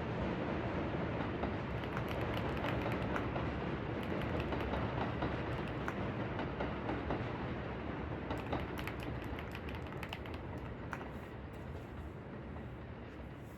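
Computer keyboard typing in scattered clicks, with a denser run of keystrokes about two-thirds of the way through, over a steady low ambient noise bed.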